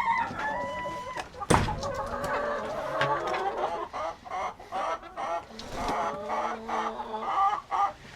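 A flock of chickens clucking and calling, with a sharp knock about a second and a half in, the loudest sound here.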